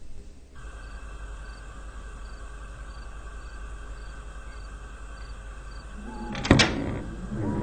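A cricket chirping about twice a second over a steady night background, then about six seconds in a rising whoosh ending in a sharp bang as a window swings shut.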